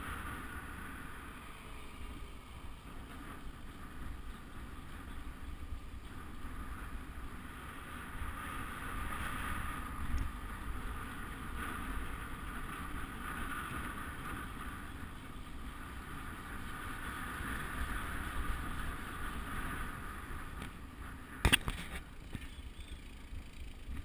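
Road bike coasting downhill on tarmac, heard from a camera carried by the rider: a steady rumble of tyres and wind on the microphone, with one sharp knock near the end.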